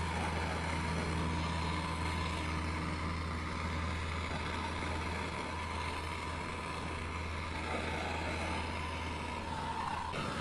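Hand-held gas torch burning steadily, a low rumble with an even hiss, heating the main bearing's center in the engine case so the case half will slip over the interference fit.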